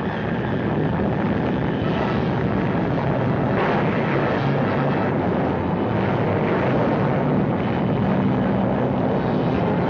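Newsreel sound for an atomic test blast: a loud, steady rushing rumble like a gale, swelling briefly about three and a half seconds in, as the shock wave strikes the test buildings.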